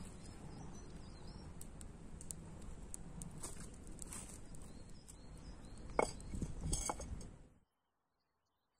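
Wood fire crackling in a stone campfire hearth, with light footsteps on dry leaves; two sharper cracks come about six and seven seconds in. The sound then cuts off suddenly.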